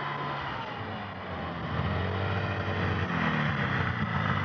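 Snowmobile engine running as the machine approaches, growing louder about two seconds in, with its pitch shifting.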